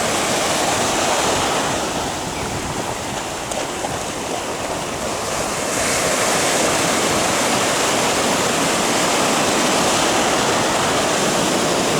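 Atlantic Ocean surf breaking and washing up the beach, a steady rush that dips slightly a couple of seconds in and swells louder about six seconds in.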